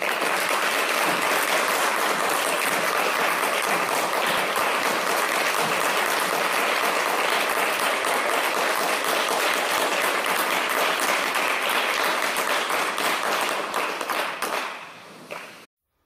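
Audience applauding in a hall, a dense steady patter of clapping that dies away near the end.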